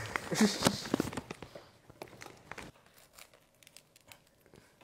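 A bag of potato chips crinkling, with the chips crunching as they are crushed inside it, dense for about the first two and a half seconds and then dying down to a few faint rustles.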